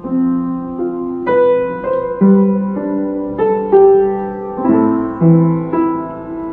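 Upright piano played slowly, a melody over held chords with new notes struck about every half second.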